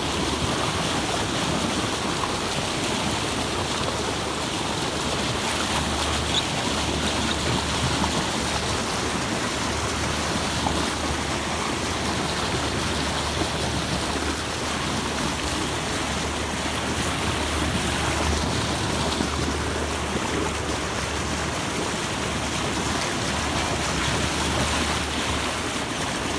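Steady rush and splash of water from a moving boat's bow wave cutting through the sea, with a low steady drone underneath.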